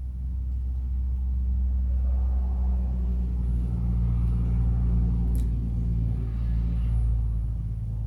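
Echo SRM-230 string trimmer's two-stroke engine running steadily at low speed on its newly replaced carburetor, getting a little louder over the first couple of seconds. A short click about five seconds in.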